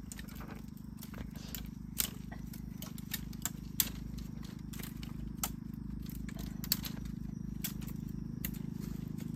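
Dry bamboo stems and twigs snapping and crackling as a person pushes their hands into a bamboo clump: sharp clicks at roughly two a second, a few louder snaps among them, over a steady low hum.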